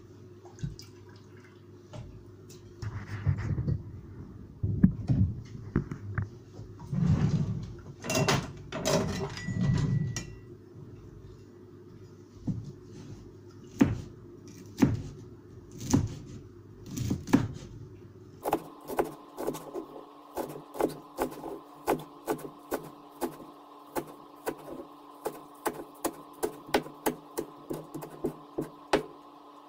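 Cleaver chopping green garlic on a wooden cutting board. It starts with scattered knocks and rustling as the garlic is handled, then single chops about a second apart. About two-thirds of the way in comes a steady run of about two chops a second over a low steady hum.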